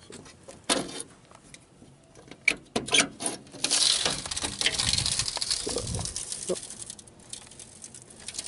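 Aluminium diamond-plate bumper cover being handled and opened over a winch: a run of light metal clicks and clanks, then a few seconds of rushing noise.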